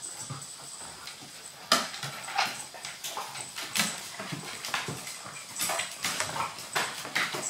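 A Golden Retriever's and a Maltese's claws clicking and skittering irregularly on a hardwood floor as the dogs play, with a sharper knock a little under two seconds in.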